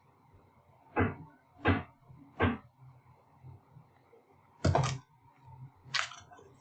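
Five separate short knocks or clicks: three come less than a second apart starting about a second in, then a longer one near five seconds and a last one about a second later.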